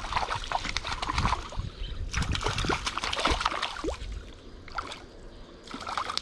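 Water splashing and sloshing in irregular bursts in a small stream as a hooked trout is brought in, with a lull about four seconds in.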